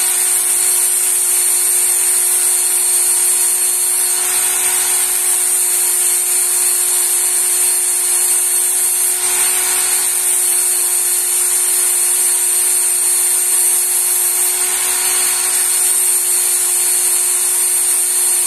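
Work Sharp belt knife sharpener running with a steady motor whine while a kitchen knife is drawn through its guide against the abrasive belt. A grinding hiss swells three times, about every five seconds, with each pass of the blade.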